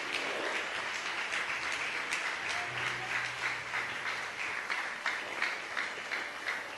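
A congregation applauding: dense, steady clapping from many people, thinning out near the end.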